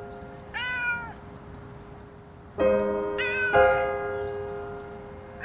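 A cat meowing twice, each a short call that rises and falls in pitch, about two and a half seconds apart, over background piano music.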